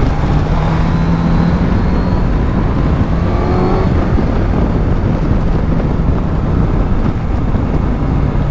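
2022 Suzuki GSX-S1000GT's inline-four engine running, picked up with wind and road noise by a microphone tucked into the rider's helmet cheek pad. About three seconds in, the engine's pitch rises briefly as it revs, then it settles back to a steady note.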